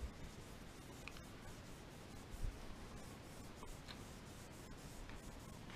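Cotton round soaked in isopropyl alcohol rubbing back and forth over a pistol slide, a faint scratchy wiping to clean off residue and oil, with a soft knock about two and a half seconds in.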